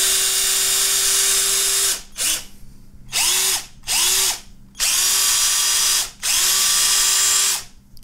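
Wakyme cordless drill/driver run in repeated trigger pulls. A long run stops about two seconds in, followed by a brief blip and four more short runs. Each run spins up with a rising whine to a steady pitch, then stops.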